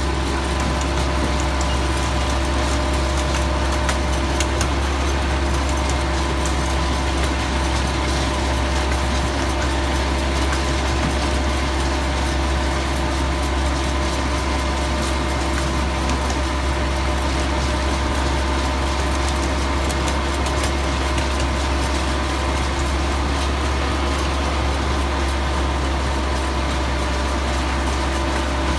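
Miniature park train's engine running steadily as the train rolls along its track, a constant low drone with steady tones above it.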